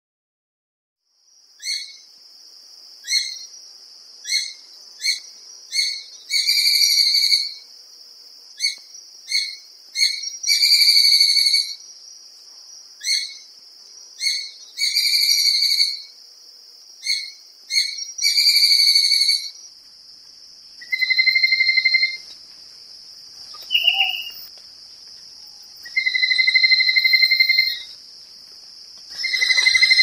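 Vinous-breasted sparrowhawk (Accipiter rhodogaster) calling, starting about a second in. It gives a run of short, sharp call notes mixed with longer drawn-out notes, a note or two every second. After about twenty seconds the notes become longer and plainer, with one brief rising note, and a steady high-pitched whine runs under the calls throughout.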